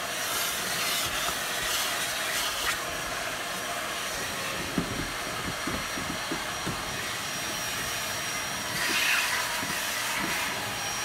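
Vacuum cleaner running steadily, its hose nozzle being worked over a car's floor and seat, sucking up dirt. The suction gets louder for a couple of seconds about nine seconds in.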